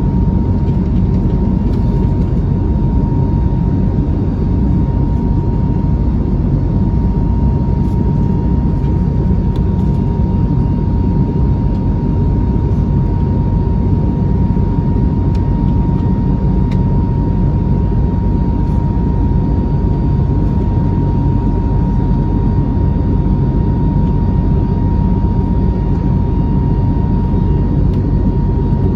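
Airbus A321neo jet engines at high power, heard from inside the passenger cabin: a loud, steady rushing noise with a steady high tone running through it.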